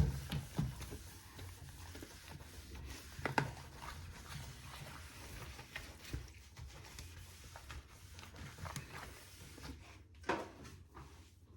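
Scattered knocks and light clicks of things being handled, with a sharp knock at the very start and another about three seconds in, over a low steady hum.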